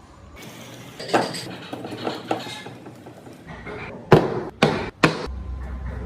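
Hammer blows in woodcarving work: a few lighter knocks, then three loud sharp strikes about half a second apart near the end.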